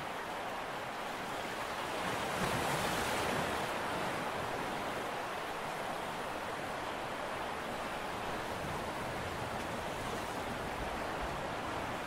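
Steady rushing noise of wind and sea water, with no clear engine tone; it swells a little about two seconds in, then settles.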